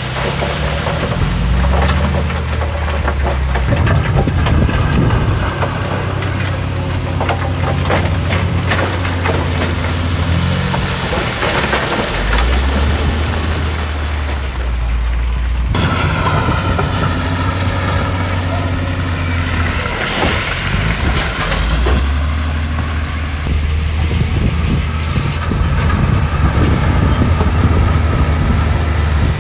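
Heavy diesel construction machinery working, the engines revving up and down under load. About halfway through, the sound changes abruptly and a higher whine that rises and falls comes in over the engine drone.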